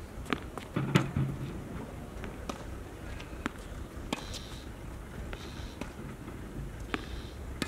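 Tennis rally on a hard court: the ball is struck by rackets and bounces, giving sharp knocks about once a second, the loudest about a second in.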